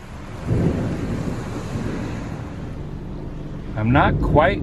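Thunderstorm: steady rain hiss with a deep rumble of the storm that comes in about half a second in and keeps going.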